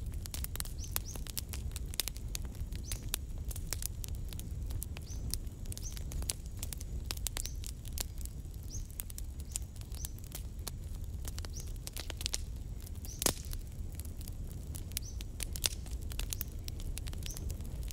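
Wood fire crackling in a clay stove, a steady stream of sharp pops and snaps over a low rumble, with one louder pop about thirteen seconds in. Birds chirp faintly now and then.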